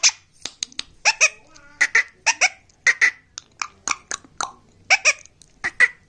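Indian ringneck parrot giving a rapid series of short, sharp squawks and chirps in quick clusters.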